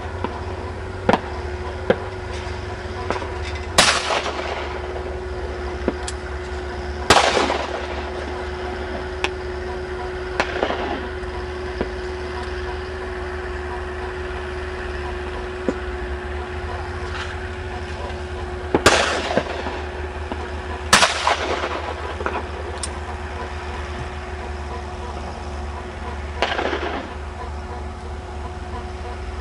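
Break-action shotgun fired at clay targets: five sharp reports, including two pairs of shots about two to three seconds apart. A steady low rumble and faint hum run underneath.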